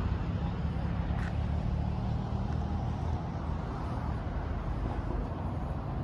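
Steady low rumble of road traffic in outdoor city ambience, with a faint brief tick about a second in.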